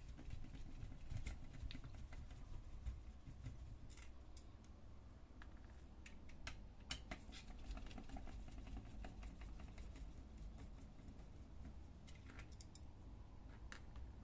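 Hand screwdriver turning out small screws from a laser-printer fuser unit's plastic frame: scattered faint clicks and ticks, with a run of quick, even ticks around the middle.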